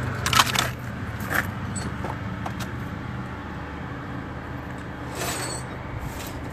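Sharp clinks and scrapes of shattered glass and charred debris being handled in a burnt-out truck cab, the loudest about half a second in, a few more over the next two seconds and a rustle near the end, over a low steady hum.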